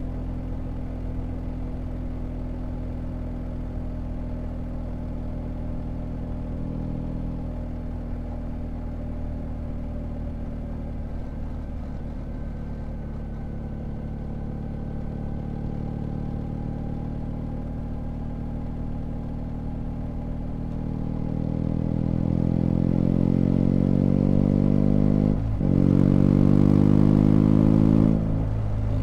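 BMW GS Adventure boxer-twin motorcycle engine cruising at a steady speed, then accelerating hard with the pitch climbing. About three-quarters through, a quick break marks a gear change, the revs climb again, and the throttle rolls off near the end.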